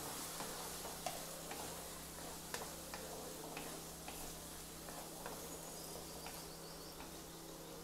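Wooden spatula stirring diced bottle gourd in a kadai, its edge knocking and scraping against the pan in irregular light ticks, about two a second, over a faint sizzle from the pan.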